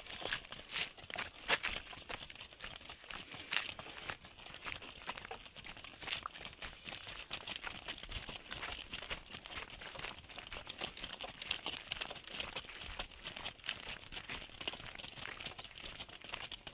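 Hooves of a pair of yoked bullocks walking on a gravelly dirt track: irregular crunching steps throughout, over a faint steady high hiss.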